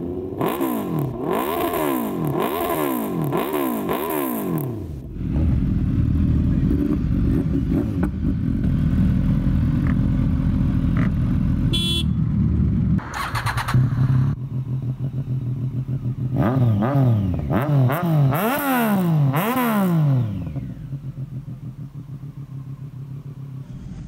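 Superbike exhausts. First a Suzuki Hayabusa's inline-four through an SC Project slip-on, revved about four times in quick rises and falls. Then other superbikes idling with a loud steady rumble and blipped several times, settling to a quieter idle near the end.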